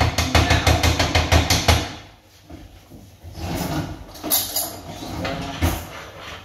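A utensil is stirred fast through flour and fat in a frying pan, giving a quick run of knocking, scraping strokes against the pan for about two seconds. About halfway through there is quieter clattering as a cutlery drawer is opened and utensils rattle.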